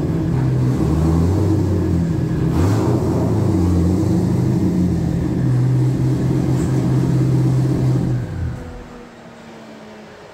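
The twin-turbocharged LS7 V8 of a 2008 Corvette C6 Z06 running steadily, its pitch shifting up and down a couple of times. About eight seconds in, the engine sound cuts away to something much quieter with a few faint falling tones.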